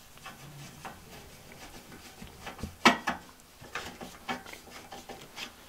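Light clicks, taps and scrapes of a screwdriver and small metal parts on the front control panel of an RV stove as a replacement igniter switch is fitted, with one sharper click about three seconds in.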